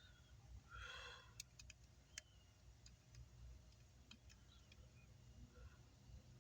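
Near silence over a low hum, with a brief sigh-like breath about a second in and a few faint, sharp clicks scattered through.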